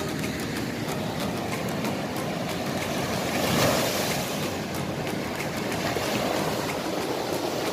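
Small waves breaking and washing up on a sandy shore: a steady rush of surf that swells once, about three and a half seconds in.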